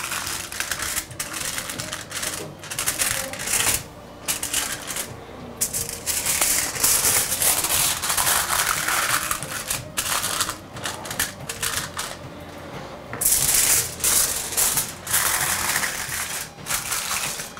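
Sheets of aluminium foil crinkling and rustling in irregular bursts as they are pressed and folded down over the rims of ramekins.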